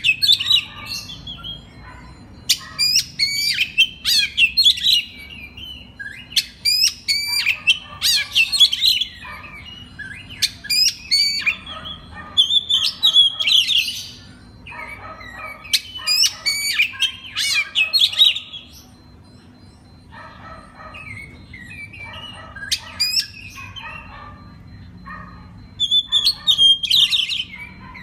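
Oriental magpie-robin (kacer) singing in bursts of rapid whistles, chirps and harsh chattering notes, each burst one to two seconds long with short pauses between. There is a longer lull about two-thirds of the way through, and a faint steady low hum runs underneath.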